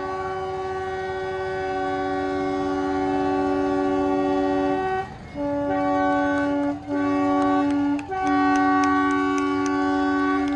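Narrow-gauge diesel locomotive horn sounding a chord of several tones: one long blast of about five seconds, then three shorter blasts in quick succession.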